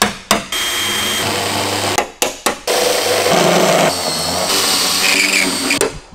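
Power drill cutting out the roof spot welds of a car body, running in long steady stretches. A few sharp hits break in between them, about a second and a half to two and a half seconds in, as the seam is wedged open.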